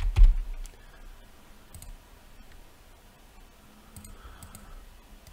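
Computer keyboard and mouse clicks: a low knock right at the start, then a few faint, scattered clicks.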